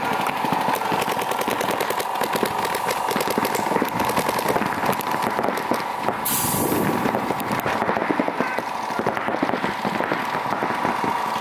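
Paintball markers firing in rapid streams of pops, over a steady high tone. A short burst of air hiss comes about six seconds in.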